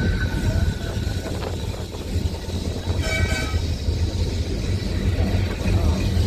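Boat tram 600 running along the track, heard on board: a steady low rumble of wheels and motors, with one short horn toot about three seconds in.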